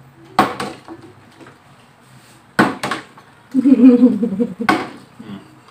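A partly filled plastic water bottle being flipped and knocking down on a glass tabletop: a sharp knock about half a second in, a quick pair near the middle and one more near the end. Between the last two knocks comes a closed-mouth hum.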